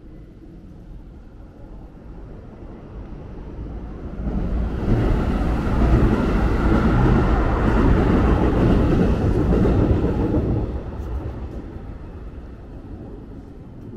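A train passing: its rumble builds from about four seconds in, stays loud for about six seconds, then fades away.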